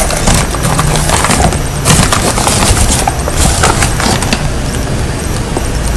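Irregular crackling and rustling handling noise, as of a cardboard and plastic retail box being turned close to the microphone, over a steady low rumble. The crackles are densest in the first two seconds and again about three to four seconds in.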